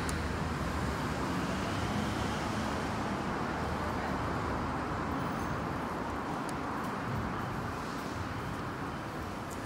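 Steady urban background noise in a roofed shopping arcade: an even hum with no distinct events, easing slightly in the second half.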